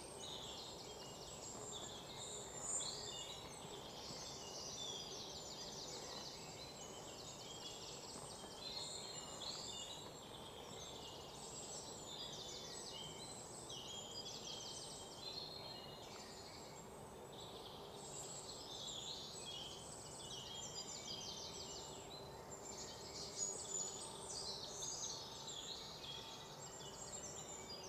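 Small birds chirping and trilling continuously and faintly, many short high calls overlapping.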